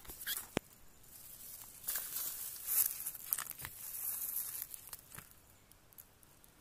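Close, irregular rustling and crackling with scattered sharp clicks, busiest in the middle and dying away near the end.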